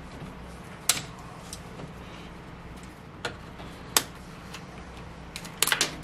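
Scattered clicks and knocks of air-suspension hose fittings and metal parts being handled on a bare Mercedes W109 front subframe. Single sharp clicks come about a second in and around three and four seconds, then a quick cluster near the end, over a low steady hum.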